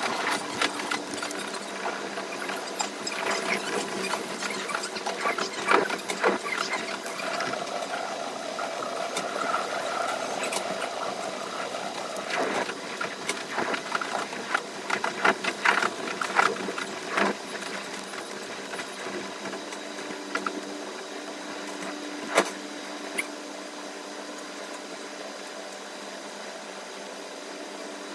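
Running noise of a limited express train played back at five times speed: wheel clicks and squeals over the track blur into a fast, rattling machine-like buzz over a steady hum. Dense runs of sharp clicks fill the first half, with one loud click a little past the middle, and the sound settles into a steadier, quieter run near the end.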